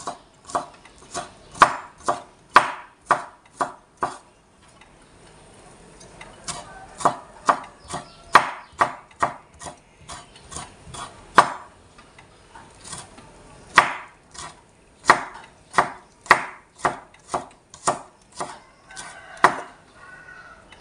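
Kitchen knife mincing garlic on a wooden cutting board: a run of sharp knocks about two a second. The chopping stops for about two seconds after the first four seconds, then starts again.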